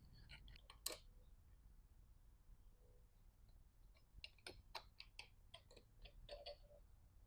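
Faint, irregular metallic clicks of hand tools working on the bicycle crank arm as it is fitted and tightened: a few in the first second, then a quicker run of clicks about four seconds in.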